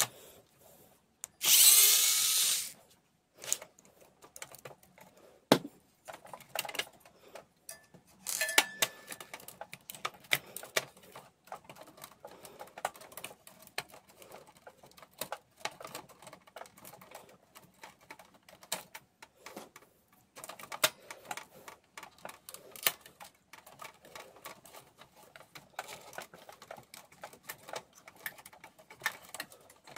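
Hands working inside an opened laser printer: scattered clicks, taps and light rattles of plastic parts and a screwdriver. A loud, hissing burst lasting about a second comes about two seconds in, and a shorter one comes near the middle.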